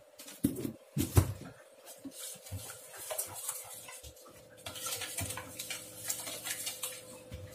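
Spoon knocking and clinking against a bowl while sugar is stirred into whisked curd: irregular knocks, the loudest about a second in, over a faint steady hum.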